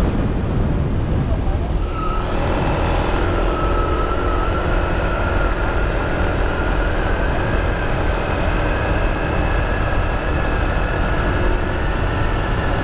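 Steady wind rush over a helmet-mounted camera while riding a motorbike at highway speed, mixed with engine and tyre noise and a faint steady whine.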